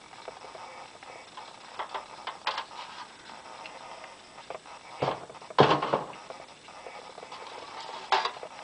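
Metal street-name signs being handled and shifted on a stack, giving several short clatters and scrapes. The loudest and longest comes a little past halfway.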